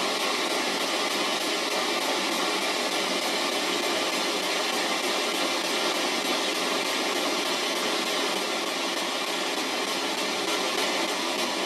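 P-SB11 spirit box hissing with steady radio static as it sweeps through stations every 300 milliseconds, with faint rapid ticks as it steps.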